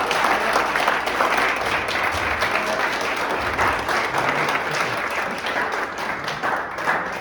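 A group of people applauding, many hands clapping together without a break.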